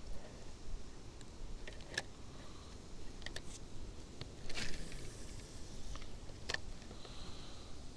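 Scattered sharp clicks and rustles from handling a spinning rod and reel while a lure is retrieved, irregular rather than rhythmic, over a low rumble.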